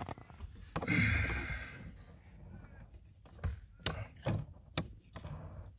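A short hiss, about a second long, of aerosol silicone spray squirted through a thin straw into the heater control cog and seal as lubricant. Then a few light knocks and clicks of small parts being handled.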